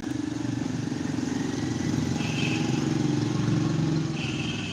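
An engine running steadily at idle, with a high steady tone sounding briefly twice, the second time near the end.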